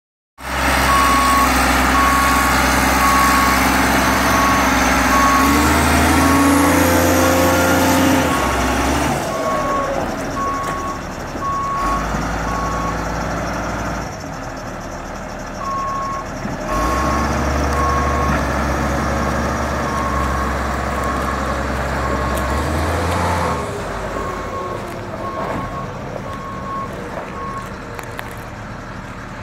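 Galion 850 motor grader's engine running and changing speed several times as it moves, with its backup alarm beeping at a steady rate. The beeping pauses briefly about halfway through and stops near the end.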